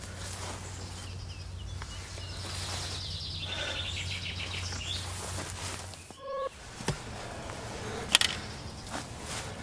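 Open-air ambience under a steady low rumble. A rapid run of high ticks comes about three seconds in, like a bird or insect trill. A short pitched call comes about six seconds in, and a single sharp click, the loudest sound, comes about eight seconds in.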